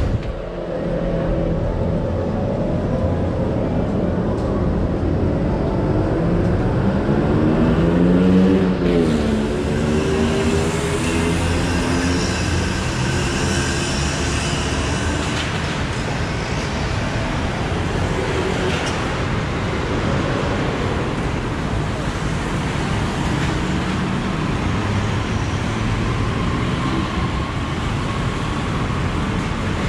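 Steady city street traffic, with one vehicle engine rising and falling in pitch as it passes about eight seconds in.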